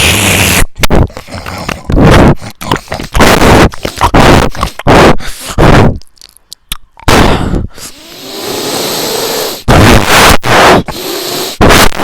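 A string of short, loud, strange noises, most under a second long with brief gaps between them. About eight seconds in there is a longer, quieter steady stretch.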